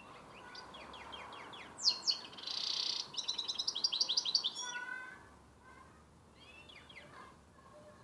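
Goldfinch (Carduelis carduelis parva) × canary hybrid singing its learning song: soft twittering, two sharp falling notes about two seconds in, a short buzzy rasp, then a fast run of repeated notes, about ten a second. It tails off into a few soft chirps.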